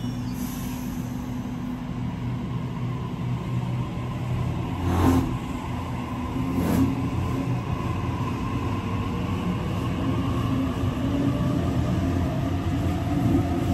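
Sydney Trains double-deck electric train pulling out of the platform, its traction motors whining and rising in pitch as it gathers speed. Two sharp knocks come about five and about seven seconds in.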